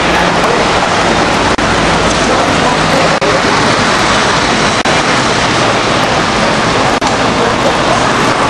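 Loud, steady street traffic noise from cars, scooters and motorbikes on the road below, with an engine hum that fades out about two seconds in.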